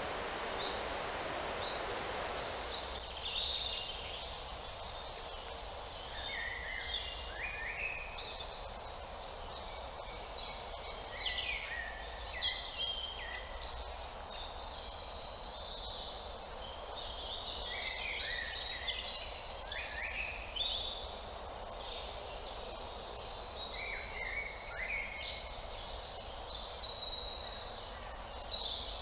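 Several songbirds singing and calling at once in woodland, with overlapping chirps, short downward notes and trills; a louder rapid trill comes about halfway through. A soft noise fades out in the first few seconds, and a faint low rumble lies underneath.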